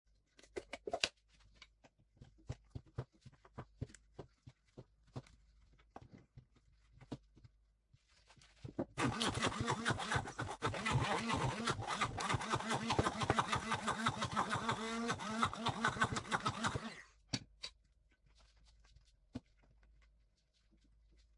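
Stick blender running for about eight seconds in a tub of part-frozen homemade ice cream, churning it up to make it creamy, and stopping abruptly. Before it there are scattered clicks and knocks.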